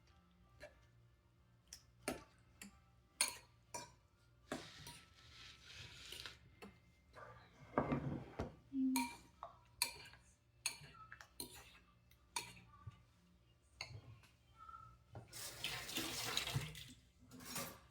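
Kitchen work: scattered knocks and clinks of utensils and dishes, with a tap running briefly about five seconds in and again for a couple of seconds near the end.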